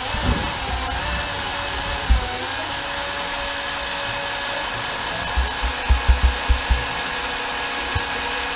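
Electric drill running continuously as it drives a self-tapping screw into the stove's chimney, with a steady motor whine. Low knocks come once about two seconds in and in a quick cluster a little past halfway.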